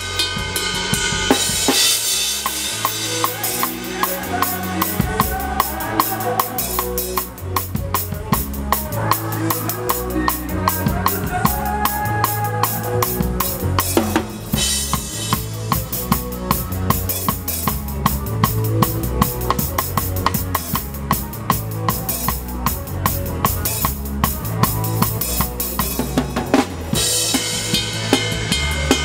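Rock drum kit with Paiste cymbals played in a steady groove: kick, snare and rapid, even hi-hat or cymbal strokes, with a band's bass line stepping underneath. There is a short break in the pattern about halfway through.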